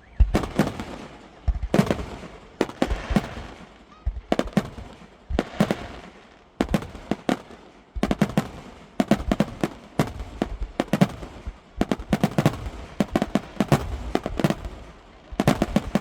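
Fireworks going off: a continuous string of sharp bangs and crackles, some single and some in rapid clusters, each bang trailing off in a short echo.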